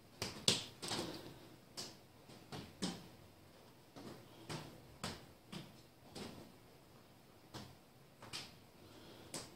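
About a dozen light, irregular clicks and knocks, spread unevenly through a quiet stretch, as a lathe chuck is turned by hand against a dial test indicator during a runout check.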